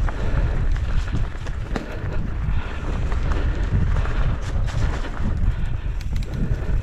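Wind buffeting the microphone over the rumble of a mountain bike's tyres rolling on a dirt trail, with scattered clicks and knocks from the bike rattling over bumps.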